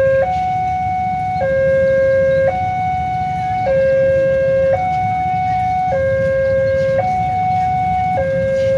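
Railway level-crossing warning alarm sounding its two-tone call, a higher and a lower tone alternating about once a second, steady and loud: the signal that the barrier is down and a train is approaching.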